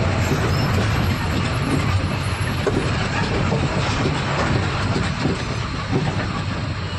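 Truck cab noise while driving on a rough road: the diesel engine running, with the cab rattling.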